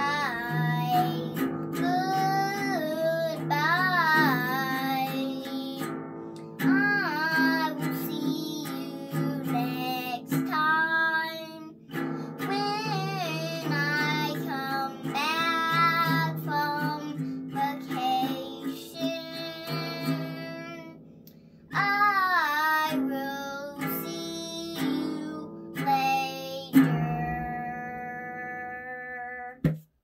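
Music: a song with a high singing voice over a steady accompaniment, ending on a long held note.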